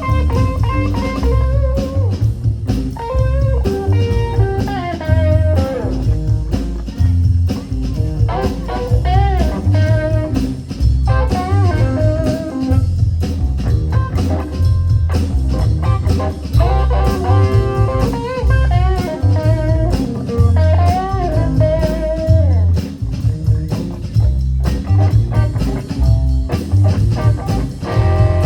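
A blues trio playing: a guitar lead line with bent, wavering notes over a bass guitar and drum kit.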